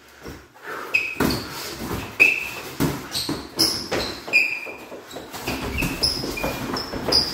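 Athletic shoes squeaking on a wood-laminate floor during boxing footwork: about a dozen short, high squeaks, mixed with the thuds of stepping feet and blows.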